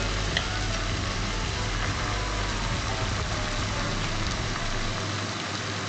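Marinated chicken pieces sizzling steadily in hot oil with fried onions in a pan, over a low steady hum, with a small click about half a second in.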